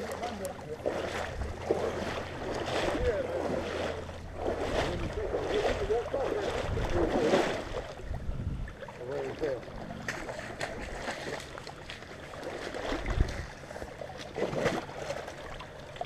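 A person wading through a knee-deep creek, the water sloshing and splashing around their legs with each step. It is heaviest in the first half.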